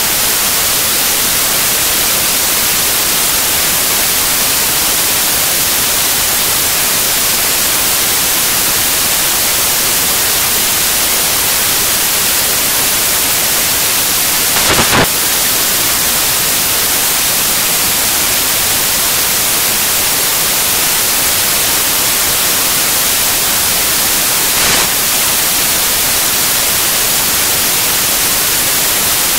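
Loud, steady static hiss like white noise, with no speech, broken by a short click about halfway through and a fainter one later.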